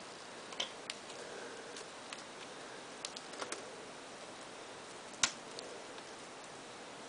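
Wire being twisted by hand around another wire: a few faint, scattered ticks and clicks over low room hiss, the sharpest about five seconds in.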